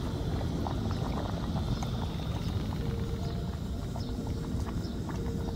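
KOVEA camping gas stove burning under a pot of boiling soup: a steady low rumble with small scattered pops.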